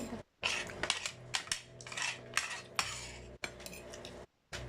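Spoon and fork clinking and scraping against a plate while eating, a string of sharp clinks broken twice by abrupt short gaps of silence.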